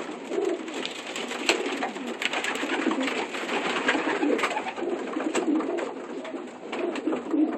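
Racing pigeons cooing in their loft: a continuous overlapping murmur of low coos, with scattered sharp clicks.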